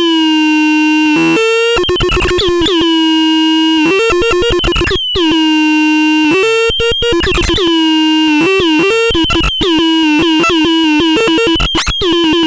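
A crude synthesizer playing a harsh, buzzy tone that jumps between a few pitches and stutters on and off in rapid chopped bursts, with a few sharp clicks.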